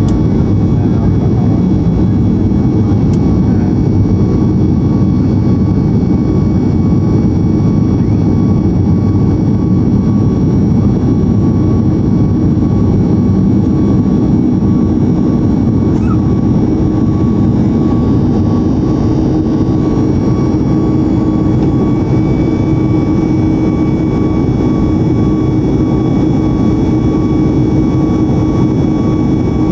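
Cabin noise of a Boeing 737 MAX 8-200 in flight: its CFM LEAP-1B jet engines and the rush of air make a steady drone, with a few steady whining tones on top, heard from a window seat over the wing.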